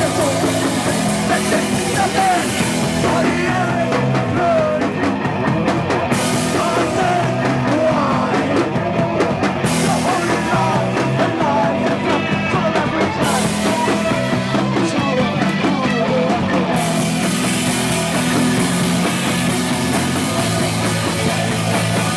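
Punk rock band playing live at full volume, a dense, steady wall of band sound with drums.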